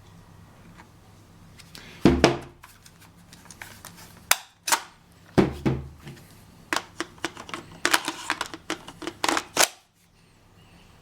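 A series of sharp plastic-and-metal clicks and knocks from handling a cordless angle grinder and its parts. There are two heavier knocks, then quicker clicks that stop abruptly near the end.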